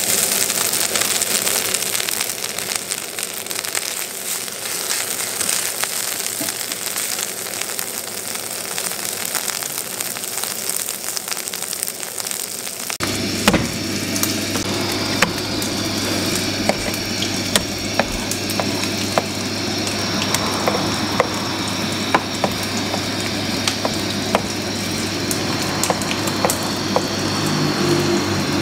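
Cubes of lamb tail fat sizzling and crackling in a hot frying pan. About thirteen seconds in, this cuts off abruptly and gives way to a knife tapping and clicking on a plastic cutting board as lamb is diced, over a steady low hum.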